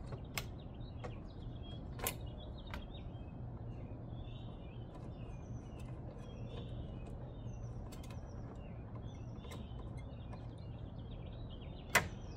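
Small birds chirping over a steady low hum, with a few light clicks from a screwdriver working the plastic push-in screws of a car's tail light trim; the sharpest click comes near the end.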